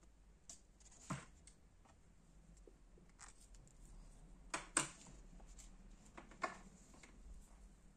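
Sheets of printed paper being handled and set down: a few scattered rustles and soft taps, the loudest just past halfway.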